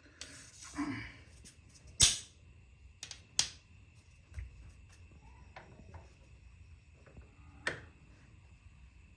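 A few scattered sharp clicks and knocks, the loudest about two seconds in, after a brief rustle, over a faint steady high whine.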